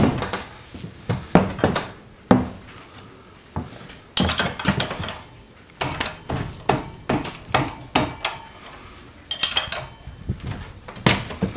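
Metal hand tools clinking and clicking in irregular bursts against a motorcycle's front axle nut as it is loosened.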